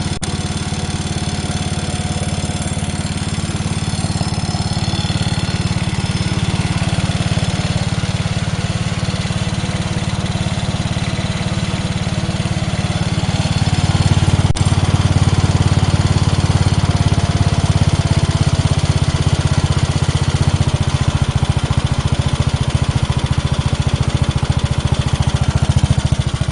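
10-horsepower Briggs & Stratton engine running steadily with a low burr on its freshly rebuilt upflow carburetor, still cold and on choke. It gets louder about halfway through, with a single sharp click just after.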